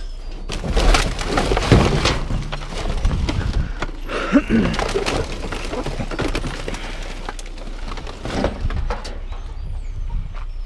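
Rummaging through trash in a metal dumpster: plastic garbage bags and cardboard boxes crinkling and rustling, with many sharp crackles and knocks, busiest in the first few seconds, as electrical cords are dragged out.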